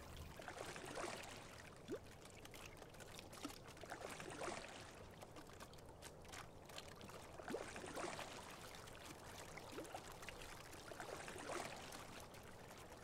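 Faint water sounds of a single scull being rowed: a swish and trickle from the sculling oar blades in the water, swelling about every three and a half seconds, once per stroke.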